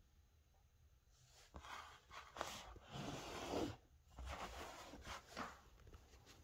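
Faint handling noise as a stainless 1911 pistol is picked up, turned in the hand and set back down on a cloth: rustling and scraping, with a light click about two and a half seconds in.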